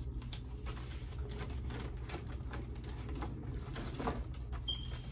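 Plastic packaging rustling and crinkling in a series of quick clicks as a parcel is handled and opened, over a steady low hum. A short high tone sounds briefly near the end.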